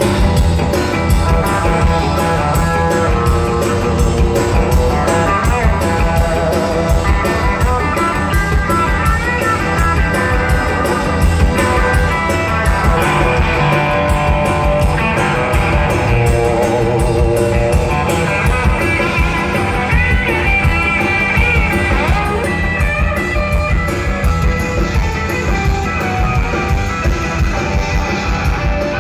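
A rockabilly band playing live, loud, with electric guitar to the fore over a steady driving beat.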